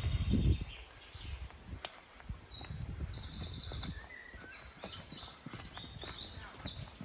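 A songbird singing a quick run of high, rapidly trilled phrases, starting about two seconds in, over irregular footsteps and rustling on the path.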